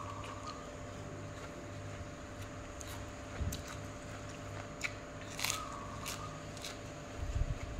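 A person chewing and crunching a lettuce-leaf wrap of pounded cucumber salad with rice noodles, with scattered sharp wet mouth clicks.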